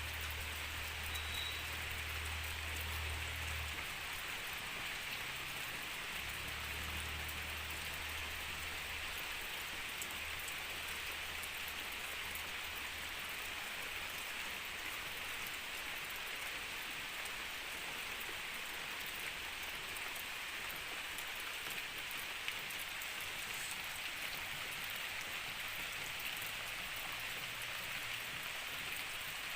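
Steady rain falling, an even hiss of drops, with a low rumble during roughly the first twelve seconds.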